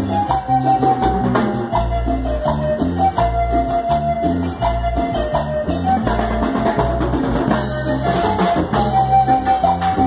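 A live band playing Latin dance music: a steady bass line under a keyboard melody held in long, even notes, with drum kit, timbales and shaker keeping the beat.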